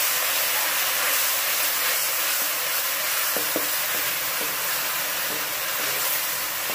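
Onions and tomato paste sizzling steadily in hot oil in an aluminium pan while being stirred with a wooden spatula, with two light knocks from the spatula about halfway through. This is the onion-tomato masala base frying.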